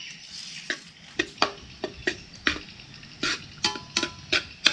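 A metal spoon scrapes and clacks against a wok about ten times as egg-coated rice is stir-fried, over a steady sizzle. The rice is being fried until the grains turn dry.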